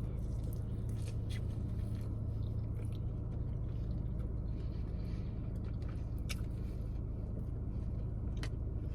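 Chewing a grilled chicken sandwich on ciabatta with the mouth close to the microphone: soft, scattered wet clicks and smacks. A steady low hum from the car runs underneath.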